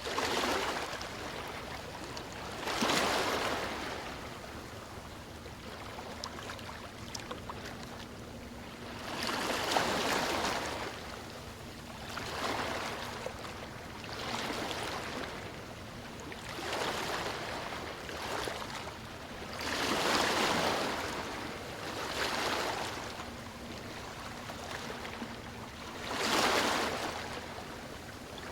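Sea waves breaking and washing up on a beach, each wave swelling and fading, about nine surges a few seconds apart over a steady wash of surf.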